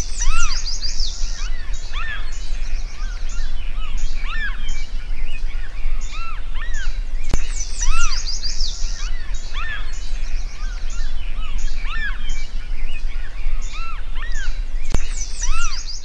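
A flock of Franklin's gulls calling: many short, arched, overlapping calls from a field recording, with a steady low hum under them. A sharp click comes about seven seconds in and again near the end.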